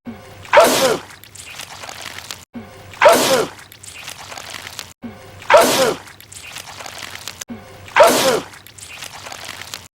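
A man sneezing loudly: the same sneeze looped four times, about every two and a half seconds. Each sneeze starts suddenly and falls in pitch, followed by a quieter wet tail as he sneezes out goo.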